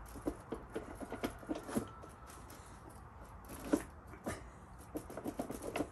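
Light, irregular clicks and knocks from the seat post of a Segway X2 seat being worked up through its adjustment holes. There is a run of clicks at first, one louder knock about four seconds in, and a quick run of clicks near the end.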